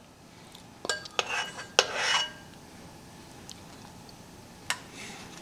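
A spoon clinking a few times against kitchenware while cake batter is spooned into cupcake liners. The loudest clink comes just under two seconds in, with a short scrape right after it, and one more clink near the end.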